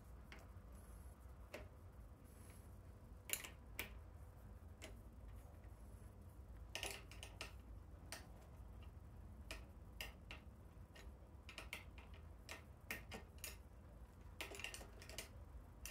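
Scattered light clicks and taps of hand tools working on an e-bike's hydraulic brake hose fittings, coming irregularly about every second or so, over a faint steady low hum.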